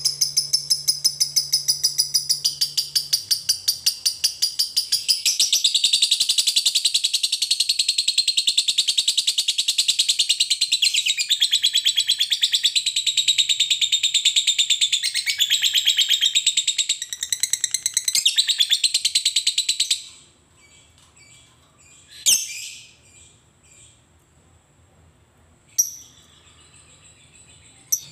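Lovebird's long ngekek song: a loud, rapid, shrill chattering trill of many notes a second that runs on without a break and stops about twenty seconds in. A couple of single sharp chirps follow.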